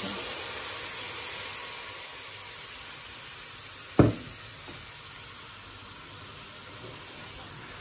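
Watery garlic-ginger paste sizzling in a hot pan of chopped onions, loudest as it goes in and slowly dying down. About four seconds in there is a single sharp knock.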